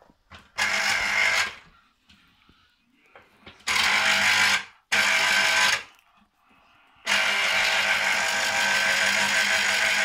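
An electric citrus juicer's motor runs in four bursts, starting and stopping as orange halves are pressed onto its spinning reamer cone. The first three bursts last about a second each and the last about three seconds.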